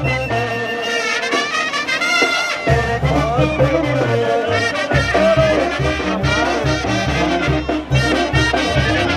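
Mexican banda-style brass music: trumpets and trombones over a pulsing low bass line that drops out briefly about two seconds in.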